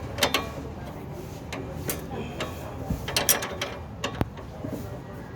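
Hand wrench and allen key working the nut off a car's stabilizer link, in scattered metallic clicks and clinks that come in a few short clusters.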